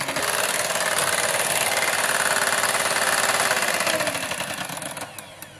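Electric hand blender with a whisk attachment whipping cream in a glass bowl: a steady motor whir with the whisk churning through the thickening cream, as the cream nears soft peaks. About four seconds in the whir drops in pitch and fades as the blender winds down.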